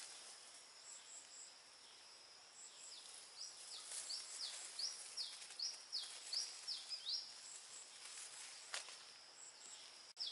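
Faint outdoor ambience of a steady high insect drone, with a run of short, falling, high chirps, about two a second, through the middle.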